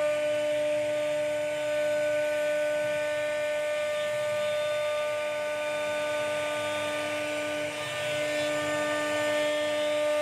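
CNC router spindle running with a steady high whine while its bit carves a relief pattern into a solid wood bed panel, with a rough cutting hiss from the bit in the wood.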